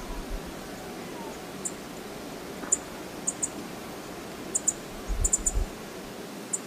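Steady rush of the Brooks Falls waterfall, heard through the bear cam's outdoor microphone. Sharp high ticks, often in pairs, come every second or so. There are a few low thumps about five seconds in.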